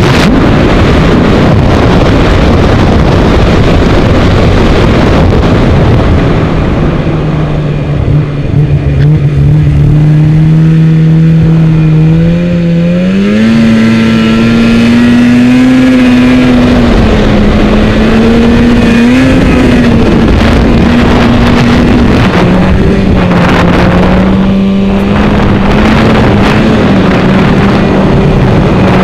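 Snowmobile's two-stroke twin engine (stock 2012 Polaris 800 Pro RMK) running hard under throttle, its pitch shifting up and down. For the first several seconds it is mixed with heavy wind noise on the helmet microphone; after that the engine tone stands out, climbing in pitch about halfway through.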